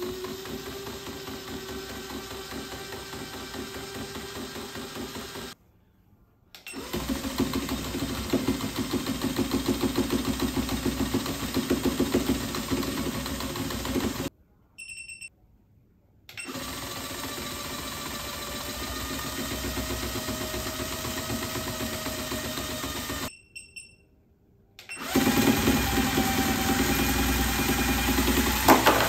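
Small electric motor and plastic gearbox of a dancing gorilla toy, overdriven from a bench DC power supply at 10 to 25 volts, whirring and rattling as it swings the toy's arms. It runs in four stretches separated by short silent pauses with brief beeps as the supply is switched between voltages, and it is louder in the second and last stretches.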